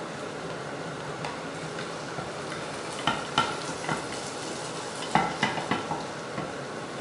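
Potato omelette frying in oil in a pan, with a steady sizzle. A utensil knocks and scrapes against the pan in two short bursts, about three and five seconds in.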